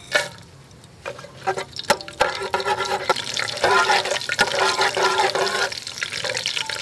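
Whole spices, star anise among them, sizzling as they are tipped into hot oil in a steel pot, the sizzle growing louder from about two seconds in as they are stirred. A few sharp clinks of the metal ladle against the pot.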